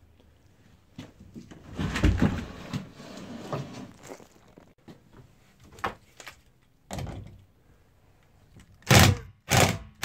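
A plastic RV fresh water tank being shoved back into its wooden frame: a couple of seconds of scraping and rubbing with thuds, then a few separate knocks, and several short loud bursts near the end.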